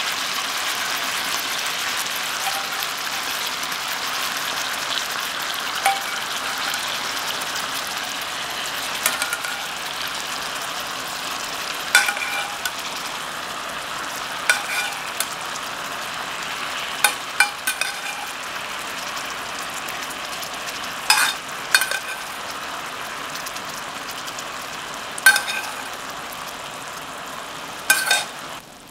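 Chicken thigh fillets sizzling in hot oil in a frying pan, a steady hiss. A metal spoon clinks against the pan several times in the second half as the juices are spooned over the meat.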